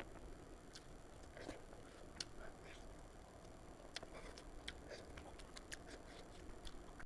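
Faint close-up eating sounds: scattered small clicks and smacks of chewing, irregular and spaced well apart.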